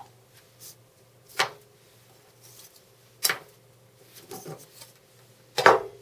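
Handling knocks and clicks on a wooden table as a thin steel plate and a flexible fridge magnet are moved and set down. There are three sharp knocks about two seconds apart, the loudest shortly before the end, with a few softer taps between them.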